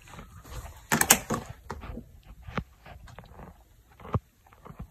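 Irregular knocks and clatter of furniture parts and hardware being handled, with a loud cluster of knocks about a second in and a few single sharp knocks after.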